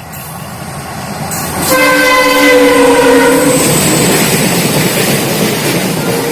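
Indian Railways diesel freight locomotive sounding its horn in one blast of under two seconds, about two seconds in. The roar of the locomotive and freight train passing close builds and stays loud.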